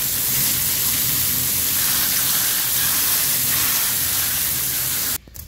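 High-pressure water hose spraying onto a fish and a plastic cutting board as the fish is washed: a loud, steady hiss that cuts off suddenly near the end.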